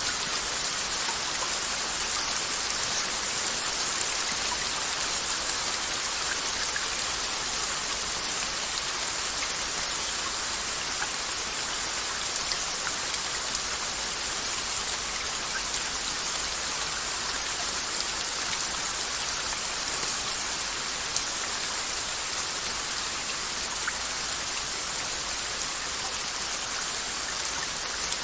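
Steady rain falling, with a constant hiss and scattered individual drops ticking on a surface.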